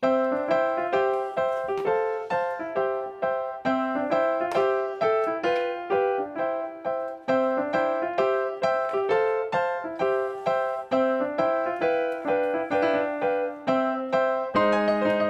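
Background music: a bright keyboard tune of quick, evenly spaced notes, with lower notes joining near the end.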